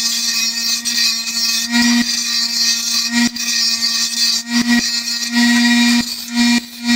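Harbor Freight bench grinder running at full speed with a steady hum while a piece of steel strap is ground against the wheel, rounding its rough-cut end to a radius. The grinding hiss swells and eases as the steel is pressed on and let off.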